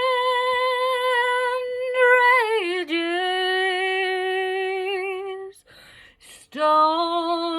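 A woman singing a cappella in long held notes: the word 'wind' held on one pitch, then sliding down to a lower held note about two seconds in. After a short breath, near the end, she starts 'rages' on the lower note.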